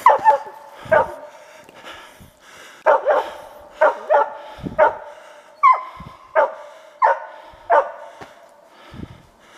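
Hunting laika barking repeatedly, about one bark a second with some barks coming in quick pairs, baying up at a spruce where game is thought to be treed.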